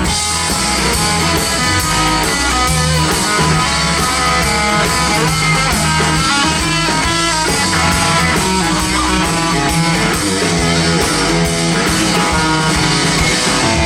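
Live band playing an instrumental break between choruses of a country-pop song: strummed guitars, electric guitar, bass and drum kit through a PA.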